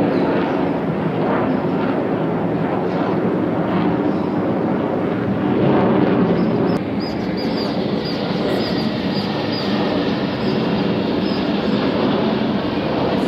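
Steady, loud roar of military aircraft engines passing over during an air show. A run of short, high chirps sounds over it in the second half.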